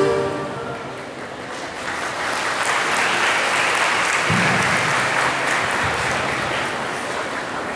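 A choir's last sung note ends, and an audience applauds: the clapping builds over a couple of seconds, holds, then slowly tapers off.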